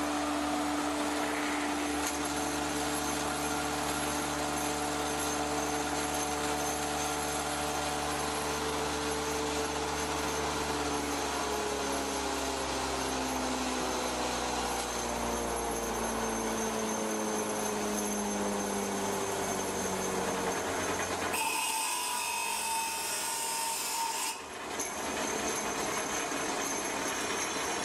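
1885 Ober copying lathe and belt-driven shop machinery running while turning a wooden axe handle: a steady mechanical hum with a rasping wood-cutting noise. From about the middle, the machine's hum slowly drops in pitch as it winds down, and there is a brief hissy change in the noise about three-quarters through.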